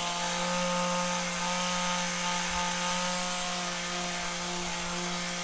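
Handheld electric massage tool running with a steady motor hum as it is worked over the patient's soft tissue.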